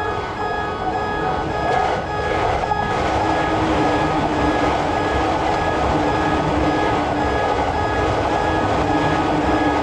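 A Japanese railroad crossing's warning bell rings in a steady repeating clang, about two strokes a second, as a train runs past. The rushing noise of the train builds over the first few seconds and then largely covers the bell.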